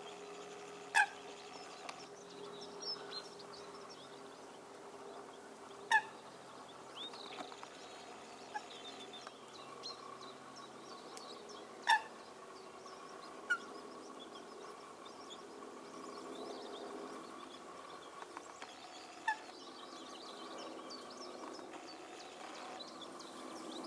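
Eurasian coots calling: short, loud single notes, about five of them a few seconds apart. Many fainter chirps from other birds and a steady faint hum run underneath.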